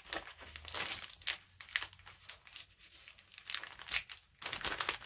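Pink plastic bubble mailer crinkling and tearing in irregular crackly bursts as hands pick and pull at it to open it.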